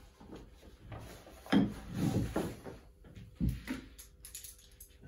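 Handling noise from a set of bagpipes: the bag rustling and its wooden stocks and drones rubbing and knocking, with two sharp knocks as the pipes are moved and set down on the table.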